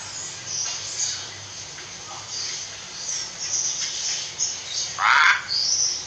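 Common hill myna calling: scattered short high chirps and whistles, a loud harsh call about five seconds in, and a short rising whistle just before the end.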